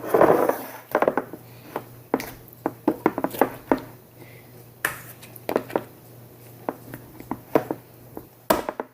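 Plastic slime containers and lids being handled, giving an irregular run of sharp clicks, taps and knocks, with a louder clatter at the start.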